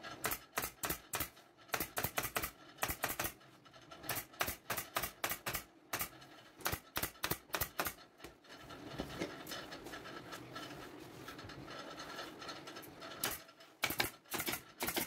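Pneumatic upholstery staple gun firing staples into a wooden sofa frame through fabric: runs of sharp clacks, about three a second, with a quieter stretch and fewer shots in the middle and another quick run near the end.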